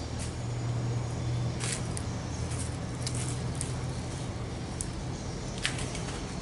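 Steady low hum with scattered sharp crackles and ticks from a wood fire burning under a wok.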